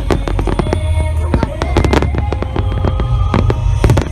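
Fireworks going off in a rapid barrage: a dense run of sharp bangs and crackles over a deep rumble, with music playing alongside.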